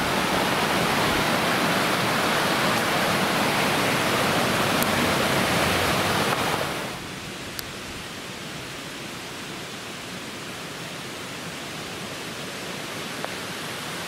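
Stream water rushing steadily below a bridge, cutting off abruptly about seven seconds in to a much quieter steady outdoor hiss.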